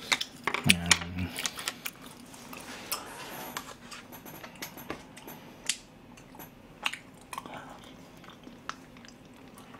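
Close-miked eating sounds: a disposable spoon clicking and scraping in a plastic tub of rice porridge, with slurps and mouth sounds as the porridge is eaten. A brief hum comes about a second in.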